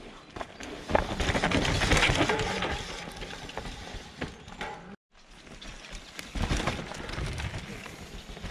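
Downhill mountain bikes rattling down a rocky dirt trail: tyres crunching over stones and roots, with irregular clicks and knocks from chain and frame. It swells as a rider passes close, about a second in and again near seven seconds, and cuts off abruptly for a moment about five seconds in.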